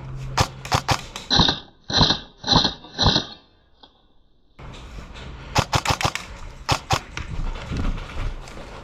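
Airsoft gunfire: a quick string of sharp shots, then four short bursts about half a second apart. After a brief silence, more sharp shots come in the second half.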